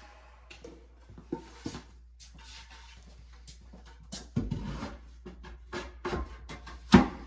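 Scattered knocks and clicks of wooden shelf pieces being handled and tapped into place during a dry fit, with one sharp knock near the end.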